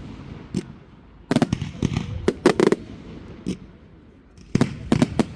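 Fireworks bursting: several groups of sharp, crackling bangs in quick succession, about a second in, around two and a half seconds in, and again near the end.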